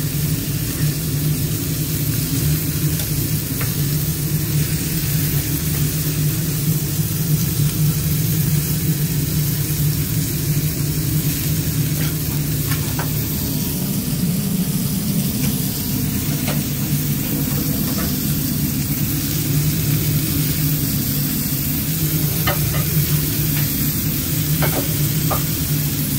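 Burger patties sizzling on a flat-top griddle over a steady low hum, with a few light clicks scattered throughout.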